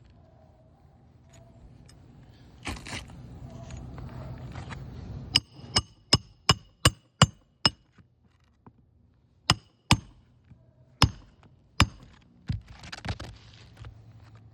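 Hand hammer driving roofing nails to fasten an asphalt shingle back down: a quick run of about eight sharp, ringing metallic strikes, then four more spaced strikes. Scraping and rustling of the shingles being handled comes before and after the strikes.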